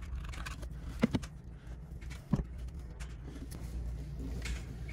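Hand tools and wires being handled on a tractor cab's wiring harness. Small sharp clicks ring out: a quick double click about a second in and another a little after two seconds, over a steady low hum.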